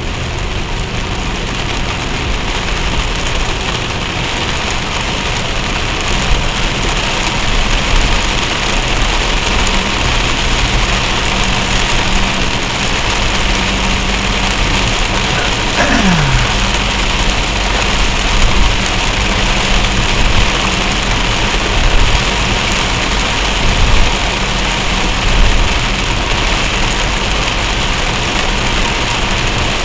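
Heavy rain falling steadily, with vehicle engines running low underneath in slow traffic. About sixteen seconds in, a short tone slides downward, and a few brief louder knocks come later on.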